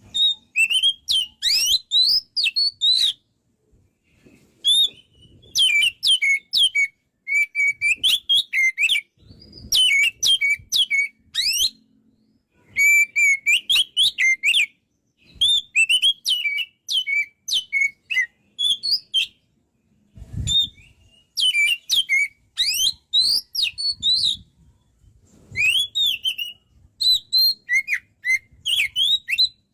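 Oriental magpie-robin (kacer) singing vigorously: repeated phrases of quick, varied whistles and chattering notes, broken by pauses of a second or two. There is a brief low thump about two-thirds of the way through.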